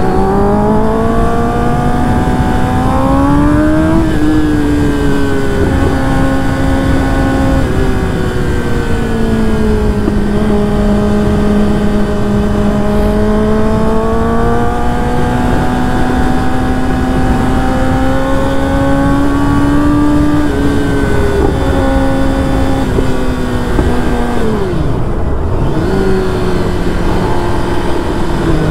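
Kawasaki ZX-10R's inline-four engine and exhaust under way. The engine climbs in pitch and drops sharply twice in the first eight seconds as gears change, then pulls in a long slow rise. Near the end it falls off to a low note and picks up again. A steady rush of noise runs underneath.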